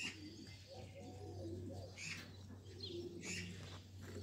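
A dove cooing in low, wavering notes while small birds chirp in short high calls, over a steady low hum.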